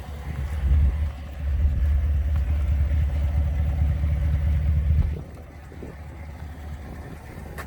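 Muffler-deleted V8 exhaust: a deep low rumble that swells about a second in, holds, then drops off suddenly a little past five seconds.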